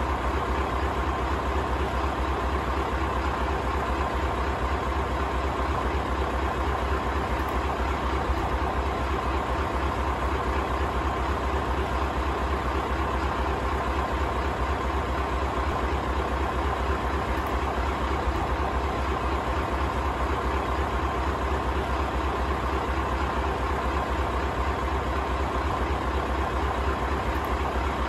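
Scania LBS141 truck's 14-litre V8 diesel engine idling steadily, an even low pulsing rumble that does not change.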